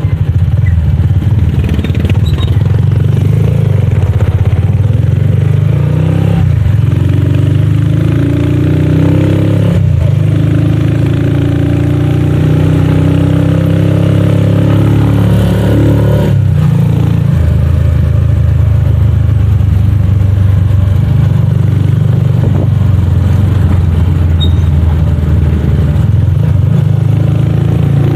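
Honda motorcycle engine of a tricycle, heard from inside its sidecar, running loud and steady as it rides along. Through the middle stretch the engine note rises and falls, with two brief breaks as it speeds up.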